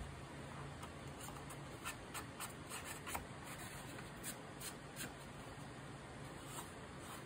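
White card being folded and creased by hand: a run of short crinkles and rubs, the loudest about three seconds in, over a faint steady hum.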